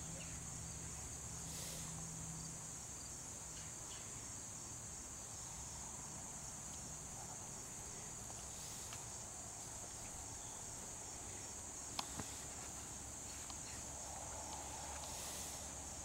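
Steady high-pitched chorus of insects in the field, a continuous shrill hiss. A couple of sharp clicks sound about three-quarters of the way through.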